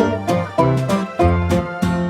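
Background music: an upbeat tune of quickly plucked string notes, banjo or guitar, in a steady bouncy rhythm.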